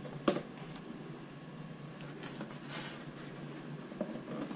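Plastic food-storage tubs being handled and set down on a tile floor: a sharp plastic clack about a third of a second in, a lighter tick just after, and a brief rustle near the middle, over low room noise.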